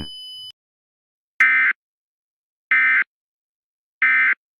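Emergency Alert System end-of-message (EOM) signal: three short bursts of buzzy SAME digital data, each about a third of a second long and a little over a second apart, marking the close of the alert.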